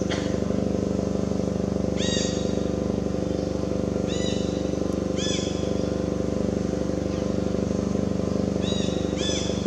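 An engine running steadily, a constant low drone, with short high chirps breaking in every second or two.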